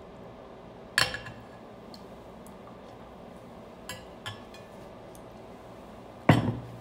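Tableware sounds while eating: a metal spoon clinks sharply against a ceramic bowl about a second in, followed by two light taps near four seconds. Near the end comes the loudest sound, a heavier clatter and knock of dishware on the table.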